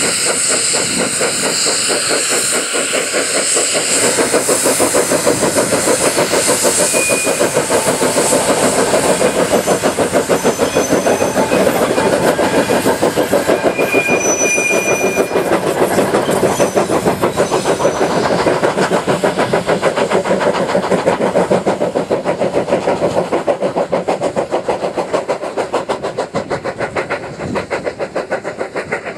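Small industrial tank steam locomotives hauling a train of wagons, working hard with a rapid, even beat of exhaust chuffs and the rattle of the train. A few brief high-pitched squeaks come through in the middle.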